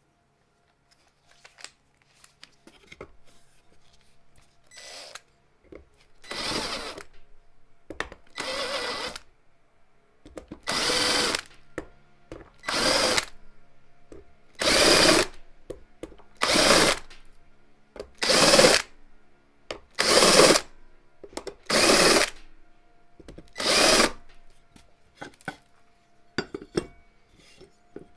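18 V cordless drill run in about a dozen short bursts of about a second each, roughly every two seconds, as its bit is run through the pre-drilled holes of an aluminium plate to clean them out.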